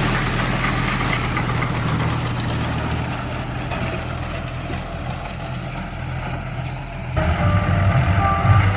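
Tractor diesel engine running steadily, as when driving a round straw baler. About seven seconds in the sound cuts abruptly to a louder stretch of engine running.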